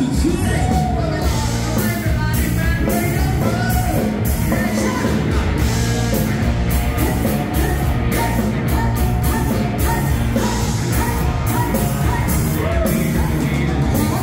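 Loud band music played through a party sound system: a singer over a steady drum beat and strong bass.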